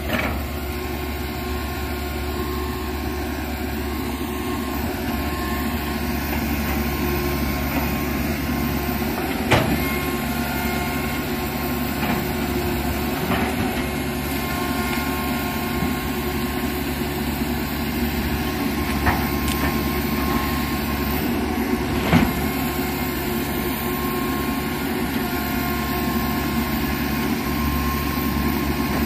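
Komatsu PC195 hydraulic excavator's diesel engine running steadily while it digs out roots and brush, with a handful of sharp knocks spread through.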